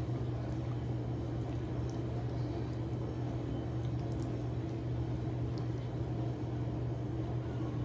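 A steady low hum, with faint scattered clicks and smacks of someone chewing food.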